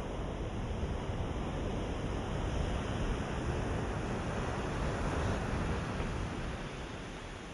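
Ocean surf: a continuous rush of waves that swells to a peak around the middle and eases off near the end.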